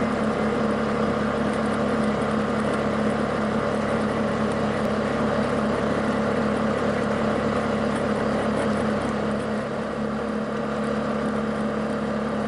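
A vehicle engine running at a steady, unchanging pitch while the vehicle rolls slowly along a paved road.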